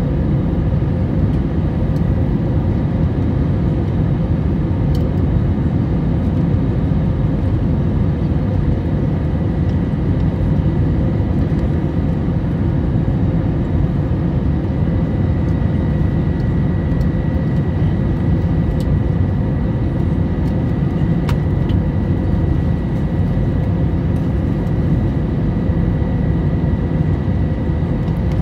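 Steady rumble of engine and airflow noise inside an airliner cabin on final approach. A faint thin high tone joins about halfway through.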